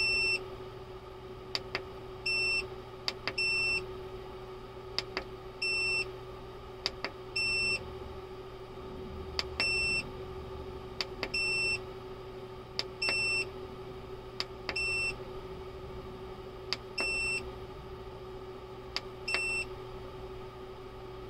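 Growatt hybrid inverter's control panel beeping as its buttons are pressed to scroll through the settings: about a dozen short, high beeps spaced one to three seconds apart, with faint clicks between them. A steady hum runs underneath.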